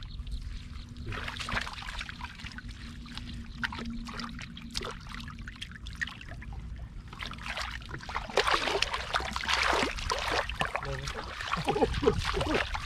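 Shallow muddy water splashing and trickling as it is worked by hand and foot, in irregular splashes that grow louder about two-thirds of the way through.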